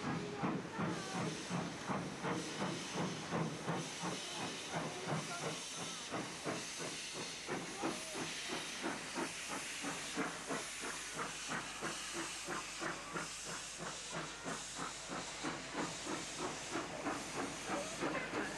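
Steam locomotive working slowly past, its exhaust giving a steady run of even chuffs over a continuous hiss of steam.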